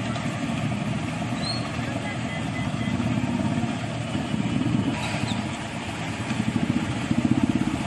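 Street traffic with motorcycle engines running, under the indistinct voices of people. Near the end, one engine's rapid beat comes up louder.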